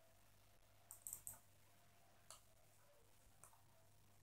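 Faint computer mouse clicks: a quick run of four about a second in, then two single clicks about a second apart, over a low steady hum.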